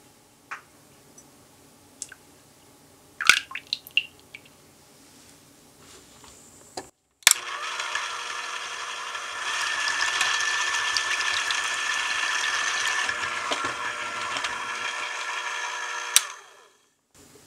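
A few light clinks, then an electric hand mixer whips cream in a glass bowl: a steady motor whine that gets louder a couple of seconds after starting, then stops with a click as the cream thickens.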